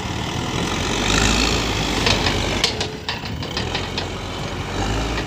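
Caterpillar 424B backhoe loader's diesel engine running under working load, swelling about a second in. Midway comes a quick series of sharp knocks and clanks.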